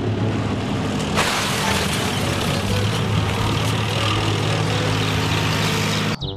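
Main battle tank driving fast: a steady low engine drone with rough track and running noise that grows louder about a second in, cutting off suddenly near the end.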